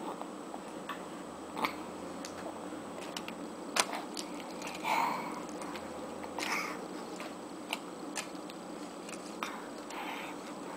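A baby eating: scattered mouth clicks and smacks, with a couple of short squeaky baby sounds around the middle.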